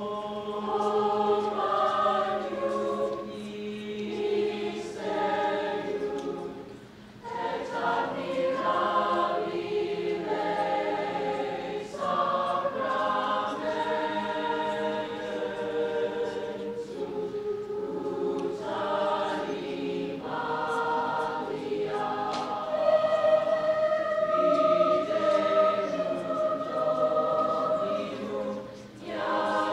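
Select student chorus of mixed voices singing sustained phrases, with a brief break between phrases about seven seconds in and another near the end.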